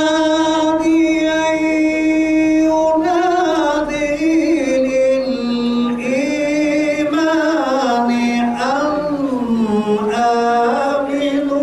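A man chanting solo into a microphone, unaccompanied: one voice holding long notes that bend and slide up and down in pitch, with few breaks.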